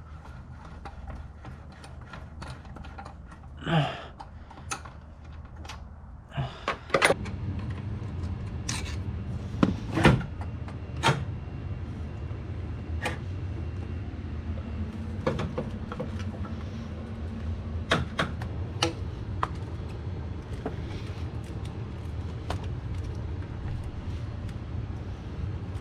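Scattered clicks and knocks of a hand tool and plastic engine-bay parts being worked loose, over a steady low hum that comes in about seven seconds in.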